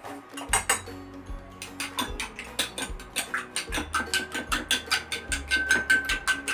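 Metal spoon beating a raw egg in a glass bowl, clinking quickly and repeatedly against the glass, several strokes a second.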